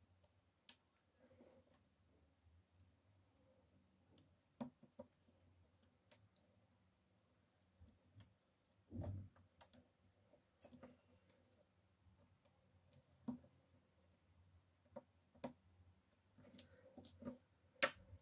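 Sparse small clicks and taps from an iPhone 6 and small repair tools being handled, about a dozen spread unevenly, with a soft low thump about nine seconds in.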